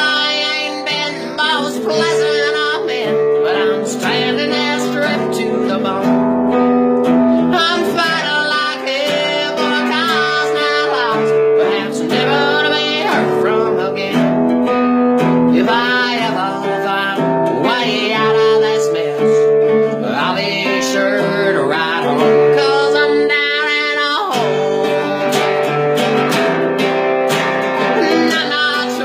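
A song played on acoustic guitar with a singing voice over it.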